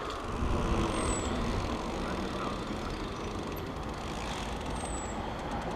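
Steady rolling noise of a mountain bike on the trail, its tyres rumbling over the ground with a rush of air. Two faint, short, high squeaks come about a second in and near the end.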